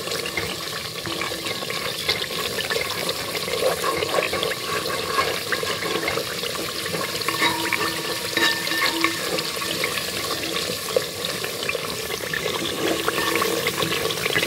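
Coconut curds frying in their own released oil in an aluminium pot, a steady crackling sizzle, while a wooden spoon stirs and scrapes through them.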